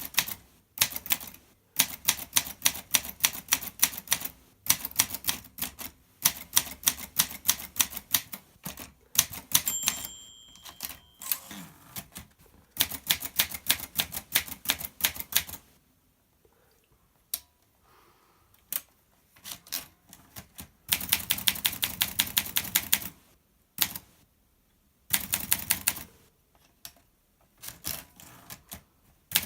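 Olympia SM2 portable typewriter being typed on: quick runs of key strikes with short pauses between them, and a sparser, quieter stretch of occasional strikes past the middle. A brief ring sounds once about ten seconds in.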